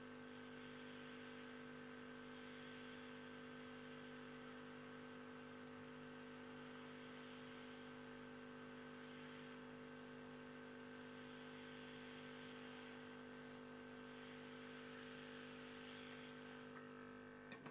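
Faint, steady hum and whir of a hot-air tool's blower, held over the switch's RAM chips to heat them. A few small clicks come near the end.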